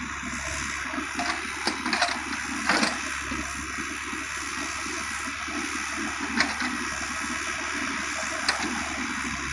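Kubota U50 mini excavator working, a steady rushing engine and hydraulic noise, with a few sharp metallic knocks: several in the first three seconds and two more later.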